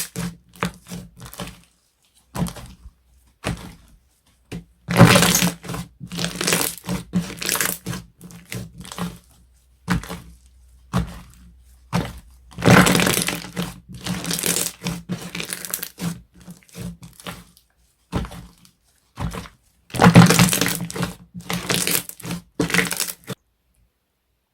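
Slime being squeezed, pressed and poked by hand, giving irregular bursts of crackling and popping with short pauses between them. A few bursts are louder, and the handling stops shortly before the end.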